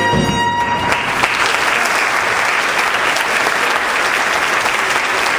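A big band's final held chord ends about a second in, and the audience applauds.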